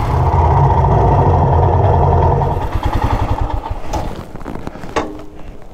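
Royal Enfield Himalayan's single-cylinder engine running at low speed as the motorcycle pulls in and stops. The engine sound drops away about two and a half seconds in, followed by a couple of sharp clicks near the end.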